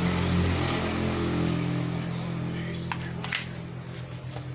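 A motor engine running steadily, its low hum slowly fading, with two sharp clicks about three seconds in.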